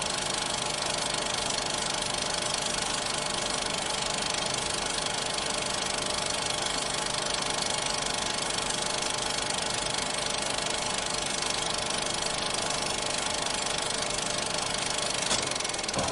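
Vintage film projector running steadily: an even mechanical whirr and reel clatter over a soft motor hum, with one brief click near the end.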